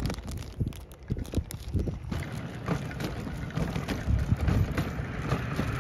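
Wind buffeting a handheld phone's microphone outdoors: an uneven low rumble that comes in gusts.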